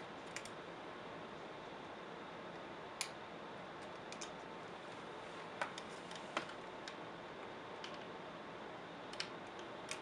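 Scattered small clicks and taps of a screwdriver tip and fingers on plastic and metal as a ribbon cable is worked into its connector inside an open laptop, a few sharp ticks a second or more apart over a steady hiss.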